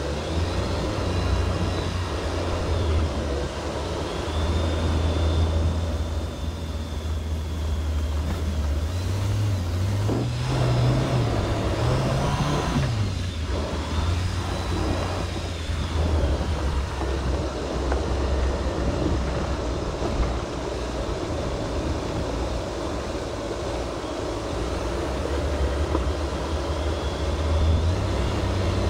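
Jeep Wrangler JL engine running steadily under way, its pitch climbing and falling a few times around ten to thirteen seconds in as it revs on the trail.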